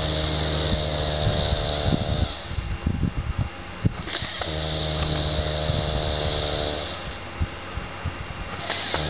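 Man snoring heavily in a slow rhythm: three long, buzzing snores about four seconds apart, with wet crackling and popping from spit bubbles at his mouth in the gaps between them. The snoring comes from a man with severe sleep apnea.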